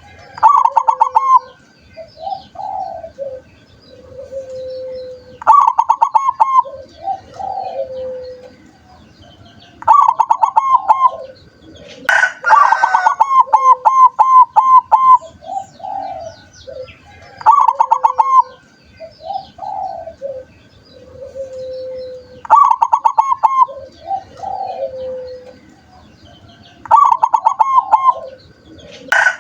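Zebra dove (perkutut) singing: a phrase every four to five seconds, each a quick run of clipped notes followed by a few lower, drawn-out coos. One longer, fuller phrase comes about twelve seconds in.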